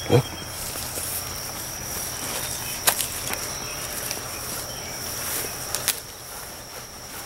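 Insects trilling in one steady high unbroken tone, with light rustling in bramble leaves and two sharp clicks, about three and six seconds in.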